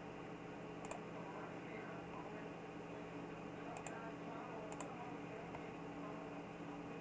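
Computer mouse button clicking three times, short sharp clicks as menu items are picked, over a steady electrical hum and hiss.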